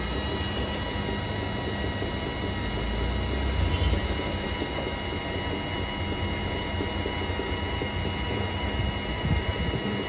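Brother computerized sewing machine running steadily, sewing a picot edge on folded fabric.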